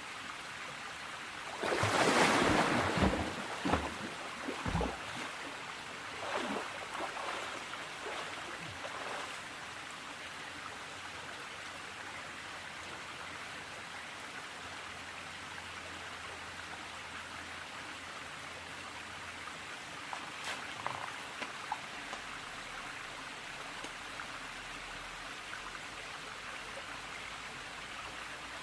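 Steady rush of river water, with a loud burst of splashing about two seconds in as a person bathing moves in the cold pool, a few smaller splashes over the next several seconds, and one more brief splash past the middle.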